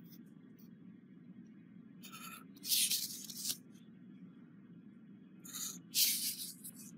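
Felt-tip pen drawing straight lines on paper along a paper straight edge: two short strokes, one about two to three seconds in and one near the end.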